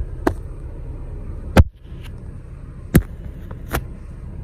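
Handling noise from a phone held in the hand: a few sharp knocks and taps on the phone near its microphone, the loudest about one and a half seconds in, over a low steady rumble inside a car.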